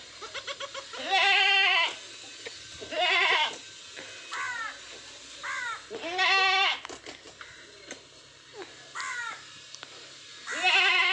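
Goats bleating: four loud, quavering bleats spread through, with shorter, quieter calls between them.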